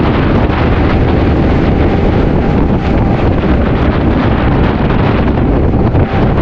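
Wind rushing over the microphone of a moving motorcycle: a loud, steady rumble that buries any engine sound.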